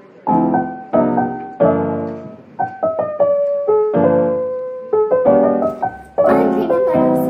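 Background piano music: a slow, gentle tune of chords struck about once a second, each fading away before the next.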